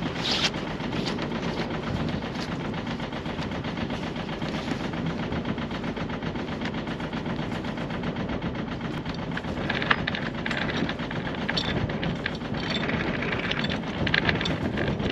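A sailboat's inboard engine running steadily, a rapid, even train of exhaust pulses. Some higher clatter joins in from about ten seconds in.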